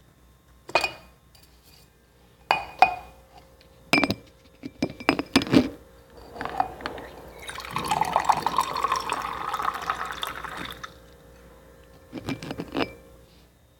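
A glass handled with a few sharp knocks and clinks, then liquid poured into a glass for about three seconds, then two more knocks near the end.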